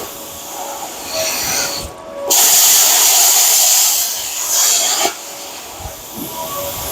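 Plasma cutter cutting through the steel spring mounts on a car frame: a loud, steady hiss of the arc and air that swells about two seconds in and eases off about five seconds in.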